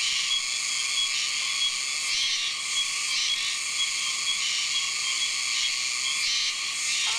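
Dense, steady chorus of cicadas and other insects, with a call that pulses over and over on top of a continuous high drone.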